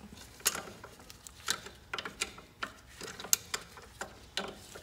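Channel-lock pliers and steel brake-shoe hardware on a truck's drum brake clicking and clinking as they are handled, a series of sharp, irregular metal clicks.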